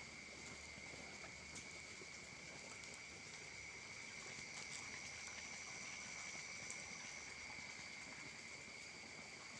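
Faint, steady chorus of insects: several high, even drones at different pitches, one of them stopping about seven seconds in, with a few faint ticks.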